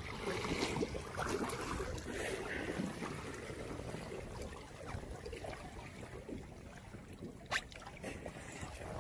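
Small waves lapping and splashing close to the microphone, with one sharp tap about seven and a half seconds in.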